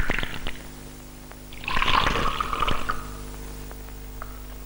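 Liquor poured from a plastic flask into a small cup and glass. There is a short pour at the start, then a louder one about one and a half seconds in that lasts just over a second.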